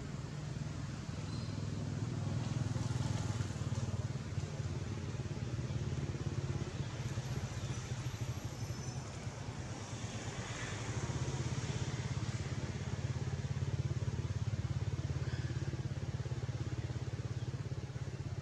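A steady low engine hum, growing louder twice and easing between.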